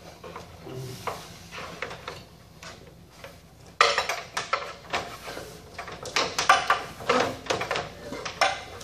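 A person climbing down a tall extension ladder: shoes on the rungs and the ladder knocking, with clinks and clatter. Faint knocks at first, then from about four seconds in a sudden run of louder, irregular knocks.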